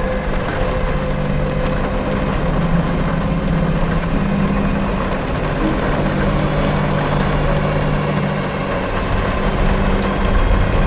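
Dark ambient film score: a steady low drone under a dense, even hiss.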